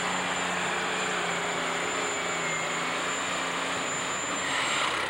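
Alcohol-burning super stock pulling tractor (John Deere-based) running flat out as it drags the sled, a loud steady engine note with a thin high whine over it. It swells briefly near the end.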